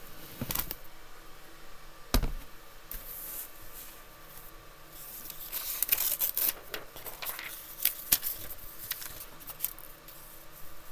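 Sheets of paper being handled and turned over, rustling loudest from about five to seven seconds in, with a sharp knock about two seconds in and a few light clicks and bumps as the camera and pen are handled.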